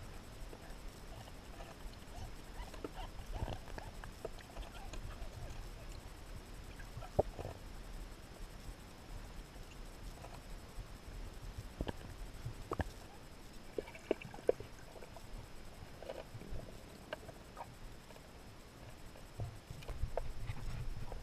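Muffled underwater ambience heard through a submerged camera: a low rumble of water with scattered faint clicks and knocks, and a faint steady high tone.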